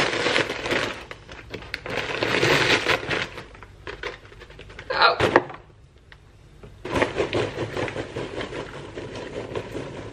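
A paper microwave popcorn bag being torn open and rustled, then popped popcorn poured from the bag into a bowl with a dry crackling rustle during the last three seconds. A short, louder noise comes about five seconds in.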